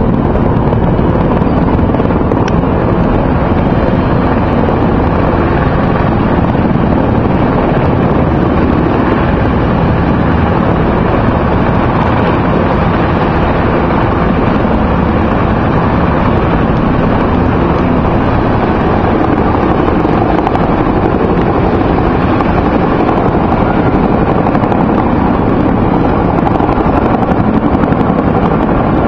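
A group of helicopters flying over, their rotors and engines making a loud, steady drone.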